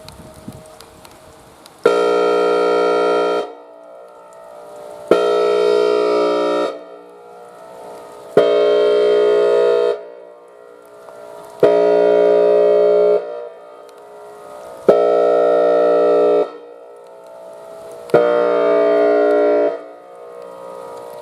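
Whelen Vortex R3 electronic outdoor warning siren sounding its air horn tone: six loud horn blasts of about a second and a half each, starting and stopping abruptly, about three seconds apart.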